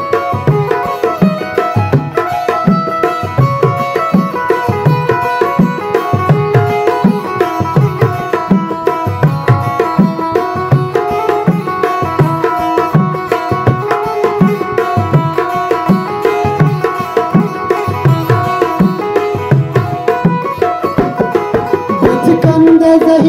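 Instrumental Baloch folk music: a benju (keyed zither) plays a busy plucked melody over a steady, rhythmic dholak beat. Near the end a singing voice comes back in over them.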